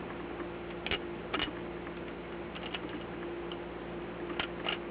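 Scattered small clicks and taps as a screw is started by hand into the van's thin wall paneling to mount the faucet part, over a faint steady hum.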